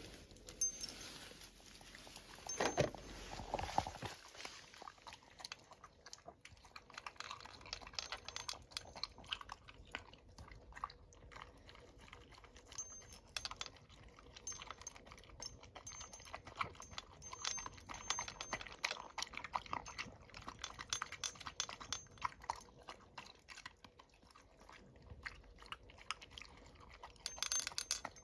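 Dog eating its breakfast: a run of small, irregular clicks and crunches of chewing and of food being taken from the bowl. A short, louder sound comes about three seconds in.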